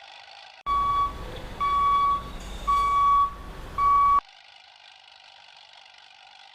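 Vehicle reversing alarm sound effect: four evenly spaced beeps at one pitch, about one a second, starting about a second in and stopping about four seconds in. A steady hum runs before and after the beeps.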